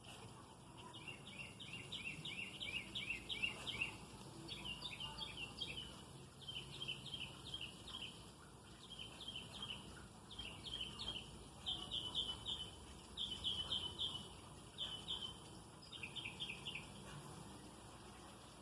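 A small bird calling in quick runs of short, falling chirps, one run about every second, over a low steady background rumble.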